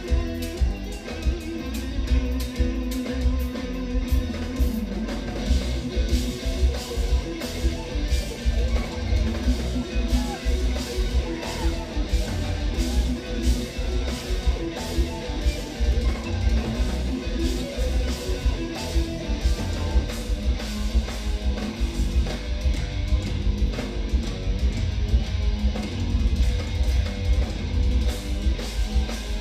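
Instrumental progressive metal played live: two eight-string electric guitars over a drum kit, with fast, dense drum hits and a heavy kick drum under the guitar lines.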